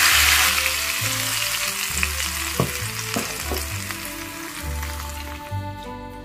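Hot oil poured onto crushed chilli sambal in a stone mortar, sizzling loudly at first and slowly dying down. A few light clicks come about halfway through.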